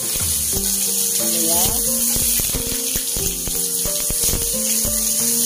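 Background music of held notes that step from one pitch to the next, over a steady hiss of sliced shallots and garlic frying in hot oil in a wok.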